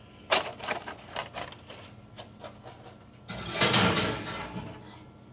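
Kitchen handling noises as a foil-covered cast iron pan goes into the oven: a few light clicks and knocks, then a louder rushing rustle about three and a half seconds in.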